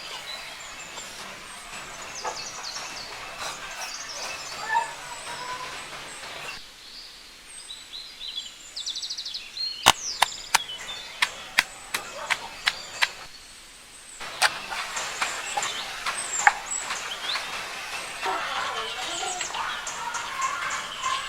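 Rural outdoor ambience with birds chirping. Near the middle comes a quick, irregular run of about nine sharp knocks.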